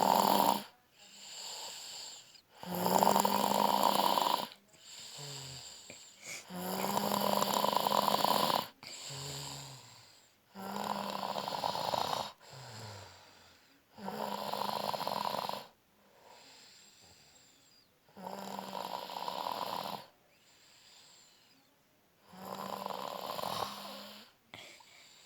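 A man snoring loudly in his sleep: a rasping snore about every four seconds, each lasting one to two seconds, with softer breaths out between them.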